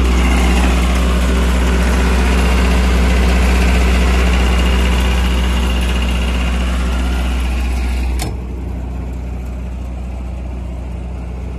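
Mitsubishi 3.3 L diesel engine of a Doosan G40 portable generator running at a steady speed, heard loudly through the open engine-bay door. About eight seconds in, a sharp clunk, the canopy door shutting, after which the engine sounds quieter and duller.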